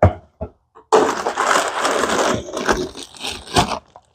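Cardboard box and its packaging being pulled open and rummaged through: a few short knocks, then a dense crackling rustle for about a second and a half, then scattered crinkles and clicks. It cuts off suddenly near the end.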